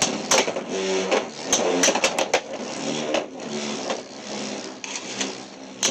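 Two Beyblade X spinning tops whirring in a plastic stadium, with many sharp clacks as they repeatedly collide.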